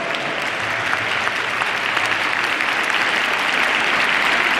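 Audience applauding steadily, growing slightly louder.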